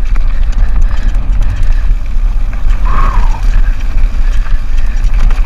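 Specialized Turbo Levo e-mountain bike rattling and clattering down a loose, rocky trail, with heavy wind buffeting on the microphone. A brief high squeal comes about three seconds in.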